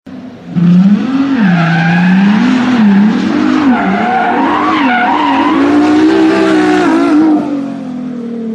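Sports car engine revving up and down while its tyres squeal in a drift, easing to a quieter, steadier note near the end.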